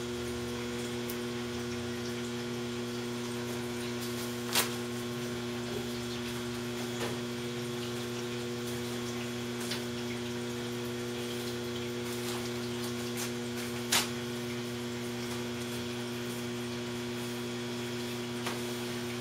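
Submersible pump in the nutrient reservoir running with a steady mains hum as it floods the hydroponic table. Two light knocks, about a quarter and three quarters of the way through, as rockwool cubes are set into the tray.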